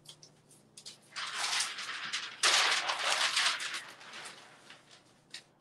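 Rustling of a large white sheet being handled and laid over a heat press platen, with a few small clicks; the rustle is loudest about two and a half seconds in, then fades.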